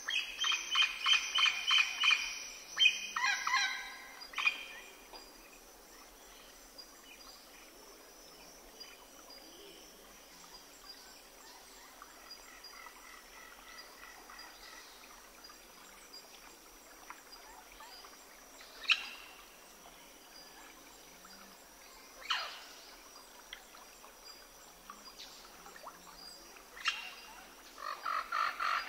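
Birds calling: a fast, rattling run of pitched calls in the first few seconds and again near the end, with a few single sharp chirps between.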